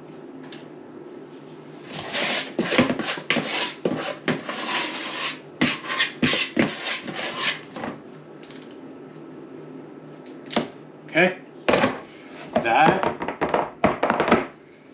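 A metal spoon scraping and clinking against a mixing bowl and a metal muffin tin as brownie batter is scooped into the cups. It comes in a quick run of scrapes and knocks for several seconds, then a second, sparser run of scrapes and taps near the end.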